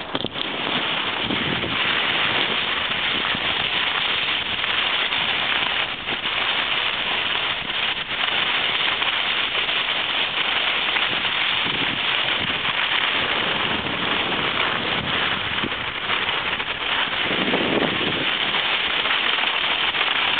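Steady rushing noise of skiing downhill fast: skis sliding and scraping over the snow, with wind buffeting the microphone.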